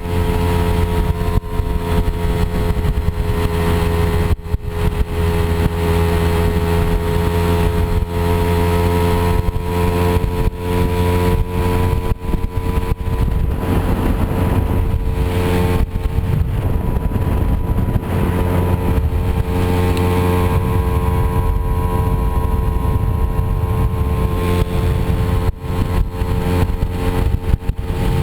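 Moped scooter engine running steadily while riding off-road, with frequent knocks and rattles from the rough ground. The note turns unsteady for a few seconds about halfway, then settles again.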